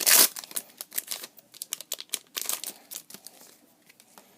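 Trading cards and their foil pack wrapper being handled, crinkling and rustling. A loud burst of crinkling comes right at the start, then the rustles thin out and die away near the end.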